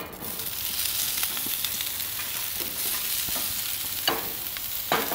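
Sliced onions sizzling as they land on a hot cast-iron griddle oiled with grapeseed oil. Metal tongs clink against the glass bowl or griddle twice near the end.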